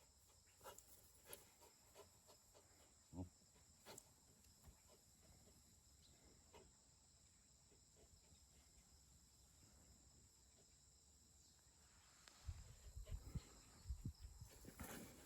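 Near silence: faint steady insect chirring, with a few soft clicks and a cluster of low thumps near the end.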